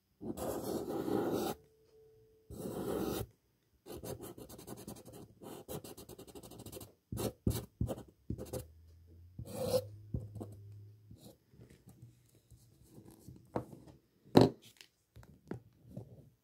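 Marker pen drawing on paper: short scratchy strokes, then many quick small rubs and ticks, with one sharp knock near the end.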